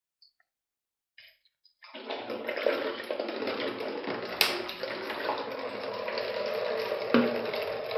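Water poured from a plastic bottle into a cut-open 5-litre plastic water bottle, splashing steadily inside it; the pouring starts about two seconds in, with a couple of light knocks partway through.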